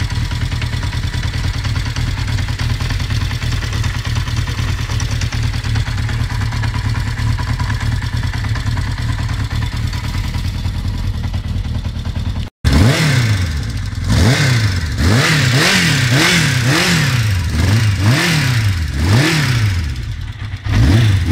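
Kawasaki ZX750-A1 (GPz750) air-cooled inline-four motorcycle engine idling steadily, then, after a brief cut about halfway, revved in quick throttle blips about once a second, each rising and falling back.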